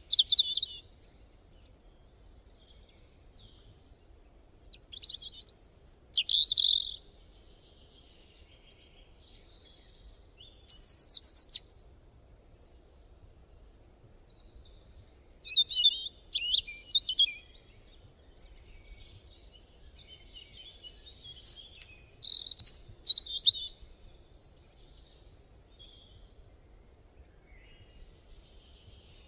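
Birds singing and chirping in short high-pitched phrases of a second or two. The phrases are spaced several seconds apart, with quiet between them.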